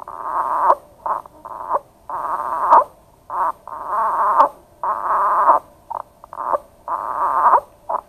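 Expiratory grunting from a patient in respiratory distress: rapid, repeated mid-pitched grunts, each lasting about two-thirds of a second, with shorter sounds in between. The grunt comes from the glottis closing suddenly on each exhalation to hold pressure in the lungs, a compensatory sign of poor lung compliance.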